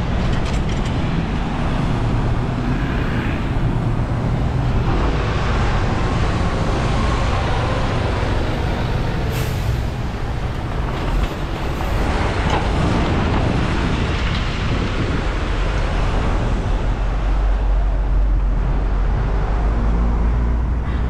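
Busy city street traffic: buses, lorries and cars running past, with a brief air-brake hiss about nine seconds in and a deep engine rumble that grows louder near the end.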